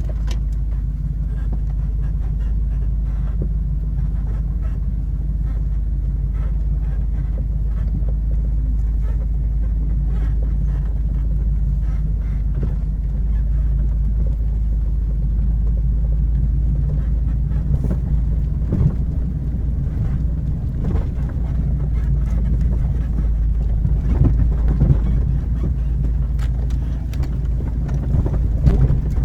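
Off-road vehicle's engine running steadily at low revs, a continuous low drone. From about eighteen seconds in, scattered knocks and rattles come over it, more often toward the end.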